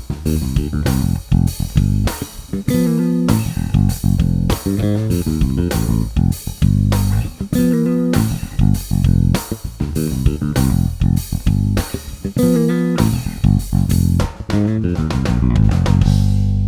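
Electric bass playing a fast riff through a Darkglass Microtubes 900 V2 bass amp head, ending on a held note.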